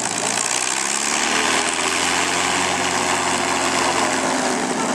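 P-51 Mustang's Rolls-Royce Merlin V-12 engine running steadily at low power, an even propeller drone.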